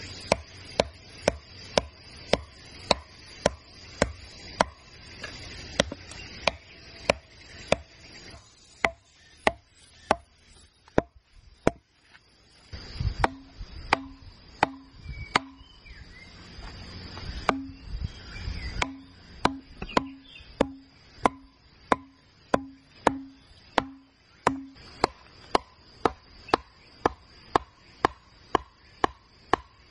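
A chunk of wood pounding an upright bamboo stake into the ground in a steady run of sharp knocks, about two blows a second. Some blows ring with a short hollow note from the bamboo. Insects buzz steadily behind.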